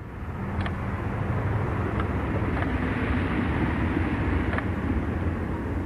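A steady low rumbling hum with a few faint clicks scattered through it.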